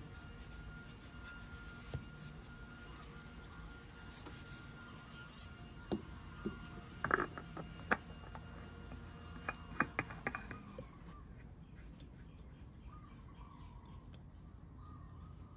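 Hand-handling sounds as a new spin-on oil filter is fitted by hand onto a scooter engine's filter mount: light rubbing, then a cluster of sharp clicks and small knocks in the middle as the metal canister is positioned and threaded on. A faint steady tone sits underneath.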